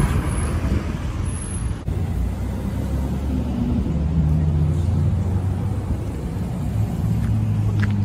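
Car engine running steady at low revs as cars roll slowly along a city street, with general traffic noise; a brief break in the sound about two seconds in.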